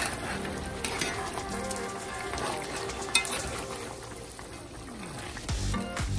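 Chicken in a thick curry sauce sizzling and bubbling in a cast-iron pot as it is stirred with a spatula. The spatula clinks against the pot about a second in and again just after three seconds.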